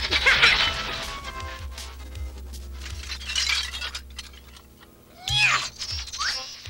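Cartoon soundtrack: a noisy crash of junk at the start, fading under background music. Near the end, a shrill squeal glides up and down, twice.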